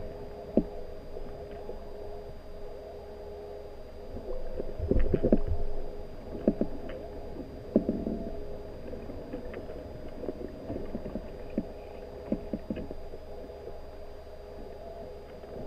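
Underwater sound in a gravel-bottomed river: a low rumble of moving water with a steady hum, and scattered short knocks and clicks, loudest in a cluster about five seconds in.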